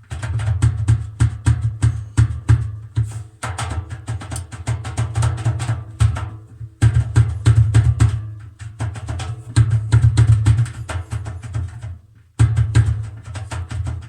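Indesit WITL 106 top-loading washing machine's drum knocking rapidly and loudly during the spin over a low hum, breaking off briefly twice. The owner suspects play in the drum as a cause of the knocking.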